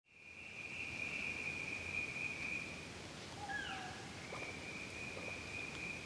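Night-time rainforest ambience: a steady high-pitched trill in two long stretches, breaking off about halfway through and resuming. In the gap come a few short falling calls and a couple of faint soft sounds, over a low hiss.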